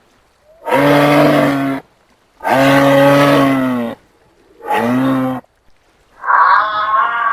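Three long, deep mooing calls from a large hoofed animal, separated by short gaps, each sagging slightly in pitch toward its end. About six seconds in, a higher, wavering singing-like sound begins.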